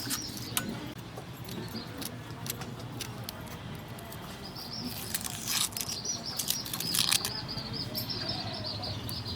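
Onions being cut: scattered crisp cuts and knocks, a few louder around the middle. High, wavering chirping runs in the background from about halfway.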